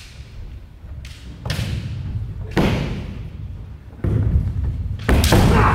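Kendo fencers in close exchange: bare feet stamping on the wooden floor and bamboo shinai striking armour. These come as a series of sharp thuds about a second apart, and the loudest are near the end.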